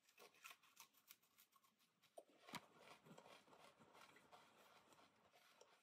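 Near silence with a few faint crunches from dry MRE vegetable crackers being bitten and chewed, the loudest about two and a half seconds in.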